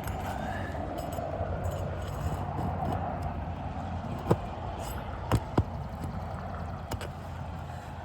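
Four sharp knocks or clicks in the second half, two of them close together, over a steady low rumble.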